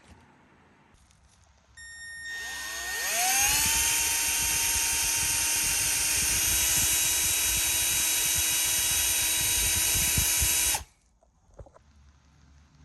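Electric drill drilling into a broken bolt stuck in a hex nut: it starts about two seconds in, its whine rising as it spins up, runs steadily at speed with a rough chatter underneath, then stops abruptly near the end.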